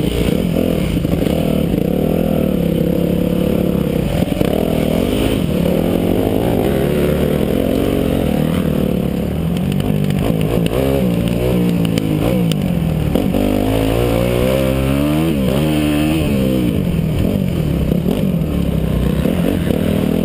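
Yamaha motocross bike's engine heard from on the bike as it is ridden, the revs rising and falling all the time as the throttle is worked, swinging up and down quickly in several short bursts around the middle.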